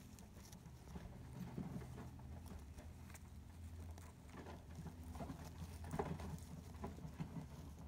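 Faint rustling and scattered small ticks of shredded-paper bedding as a litter of blue rat pups wriggle in their nest, over a steady low hum; the loudest rustle comes about six seconds in.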